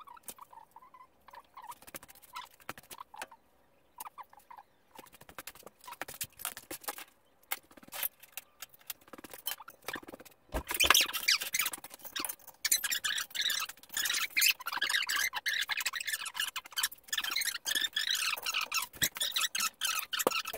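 Clicks and rattles of hand tools working on the car's front suspension. They are sparse and faint at first, then turn into a dense run of rapid clicking about halfway through.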